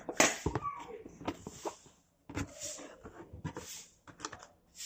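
Cardboard box and packaging being opened by hand: irregular rustles, scrapes and small taps.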